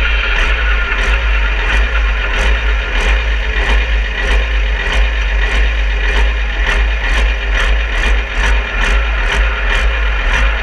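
Engine of a Fendt 930-based Supersport pulling tractor running steadily at a constant speed, heavy and low, with no revving.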